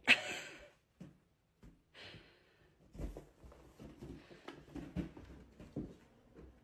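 A cat playing with a balloon: a sharp hit as the balloon is struck at the very start, then a string of soft thuds and taps as the cat and the balloon bump along the carpet and against the wall.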